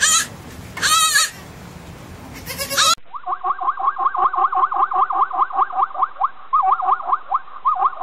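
A young goat bleating: two wavering bleats about a second apart, and a short third one near three seconds. Then a zebra's barking call, a rapid run of short, high, rising yelps, about five a second, broken by brief pauses.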